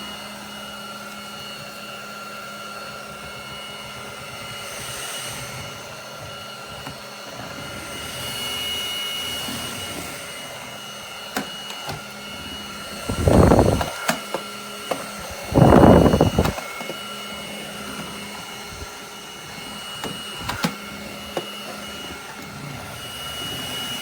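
Cordless stick vacuum running with a steady motor whine. A little past halfway there are two loud bursts of rushing noise about two seconds apart, with a few clicks scattered through.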